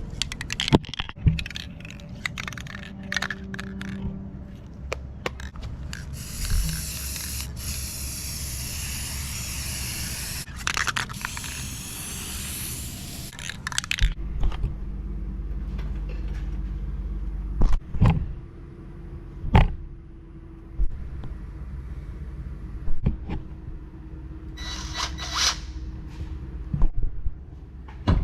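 Scraping and knocking of tools and wood being handled, with sharp knocks scattered throughout. A hissing spell lasts about seven seconds starting some six seconds in, and a shorter hiss comes near the end.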